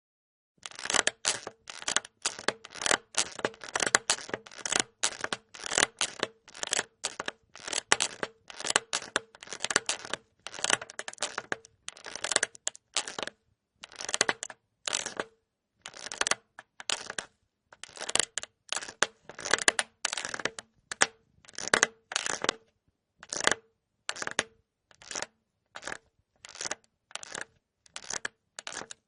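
Cartoon squeak-and-crunch sound effect: a long run of short crunchy, crackling bursts, about two a second, each with a squeaky tone in it, broken by brief pauses now and then.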